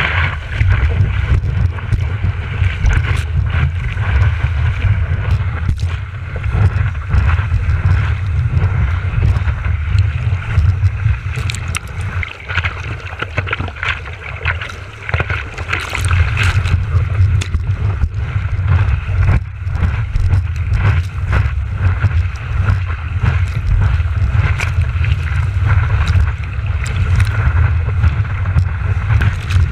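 Seawater sloshing and splashing against a paddling surfboard and the action camera on its nose, with a constant low rumble and frequent sharp splashes.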